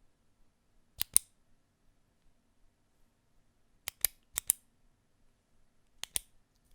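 Retractable pen being clicked: four sharp double clicks, each a quick click-clack pair, about 1, 4, 4.5 and 6 seconds in, with quiet between.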